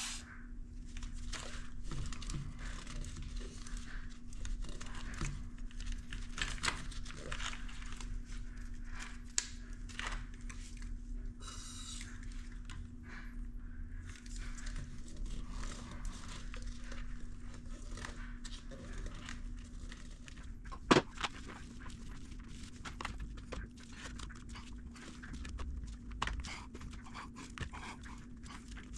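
Rustling, scraping and small clicks of gloved hands working the throttle bodies and wiring into the rubber intake boots, with a short hiss of aerosol silicone spray about twelve seconds in and one sharp click about two-thirds of the way through. A faint steady hum runs underneath.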